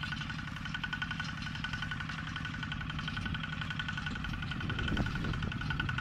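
Tractor engine running steadily as it ploughs, a low throb with a steady high buzz above it.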